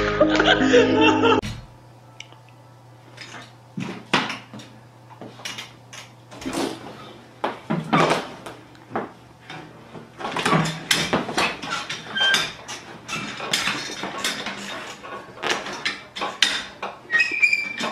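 Music cuts off about a second and a half in. What follows is irregular knocking and clattering as a tiger cub tears at an office chair, jolting its metal base and casters, over a steady low hum.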